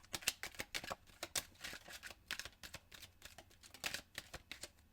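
A deck of oracle cards being shuffled by hand: a quick, irregular run of light card clicks and flicks that thins out near the end.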